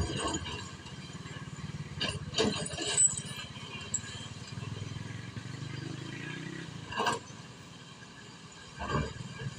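Diesel excavator engine running steadily, with several sharp knocks and clatters as boulders are loaded into a dump truck.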